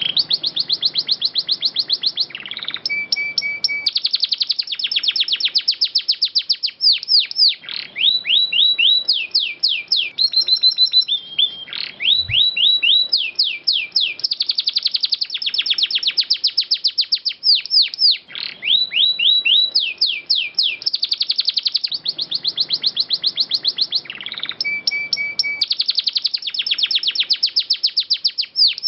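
Domestic canary singing a long rolling song: fast trills of rapidly repeated high notes, each held for a few seconds before switching without a break to a different trill.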